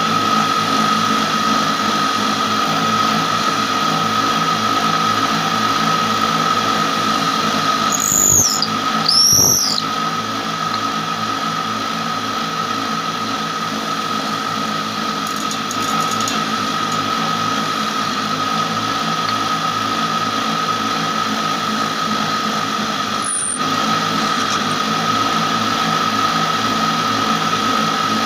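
Motor-driven spinning spindle running with a steady high whine and hum while a piece of wood is pressed against it. Two short high squeals about eight and nine seconds in, and a brief squeak later.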